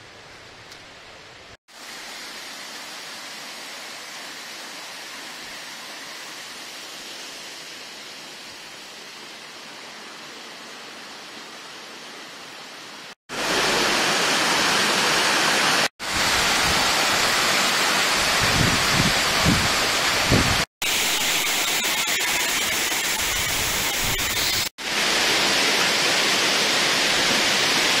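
Steady rushing of a jungle waterfall and stream. It is soft and distant at first, then much louder and closer from about halfway. The sound cuts out abruptly several times, and there are a few low thumps on the microphone a little after the loud part begins.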